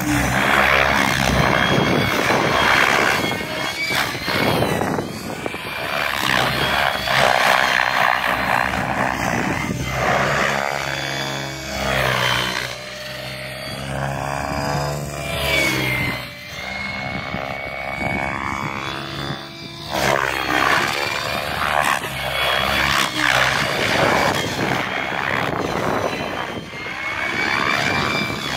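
GAUI X7 electric 3D RC helicopter flying aerobatics: the rotor blades and the motor whine rise and fall in pitch as it swoops and passes back and forth.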